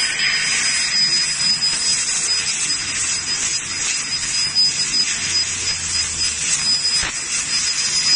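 Fiber laser cutting machine cutting sheet metal: a steady hiss of gas from the cutting head as the beam cuts, with a thin high whine over it.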